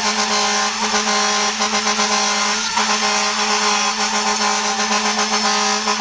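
A fire truck's horn held in one long, steady blast, with no rise or fall in pitch.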